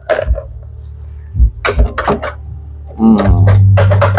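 Several sharp knocks and clatters of a popcorn machine's metal pot being tipped and handled, over a low steady hum. About three seconds in, a short falling tone gives way to a louder, deep steady hum.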